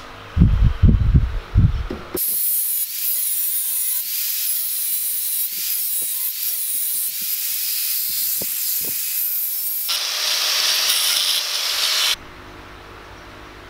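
Electric angle grinder grinding a mild steel block clamped in a bench vise, a loud hissing whine for about ten seconds that shifts in tone near the end and cuts off suddenly. Before it, a few heavy thumps as the steel is set in the vise.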